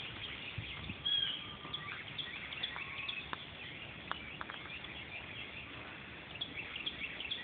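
Songbirds chirping in the background: many short, high chirps and a few brief whistled notes, scattered unevenly over a faint outdoor hiss.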